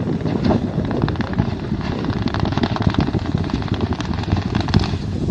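Open-pit coal mine production blast: charges in a row of drill holes detonating one after another, a dense rapid crackle of many reports over a deep rumble.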